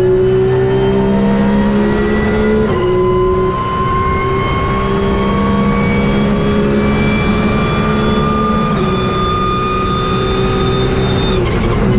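Porsche 992 GT3 Cup race car's naturally aspirated flat-six engine at full throttle, heard inside the cockpit, its pitch climbing slowly as the car accelerates. Near the end the pitch falls sharply as the driver lifts off.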